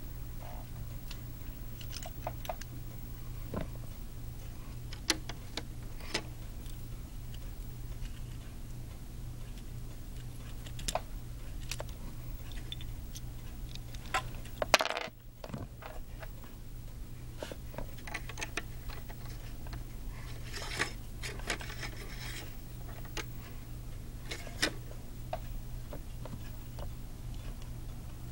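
Lego bricks being handled and pressed together: scattered small plastic clicks and rattles over a steady low hum, with one sharper click about halfway through.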